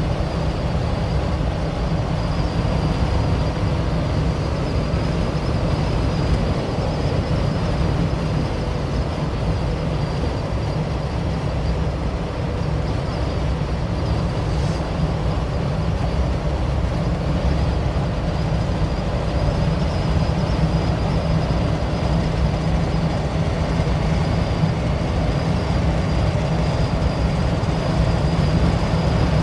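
Cabin noise of a 1992 Mercedes-Benz 350GD at highway speed, around 120 km/h: the steady drone of its 3.5-litre turbo-diesel straight-six mixed with road and wind noise, strongest in the low end, with a thin steady high whine over it.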